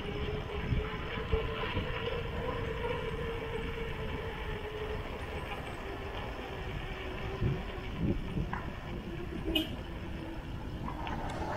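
Mountain bike rolling along a concrete road: steady wind rush over the camera microphone and tyre rumble, with a steady hum that fades about halfway and a few short knocks from the bike.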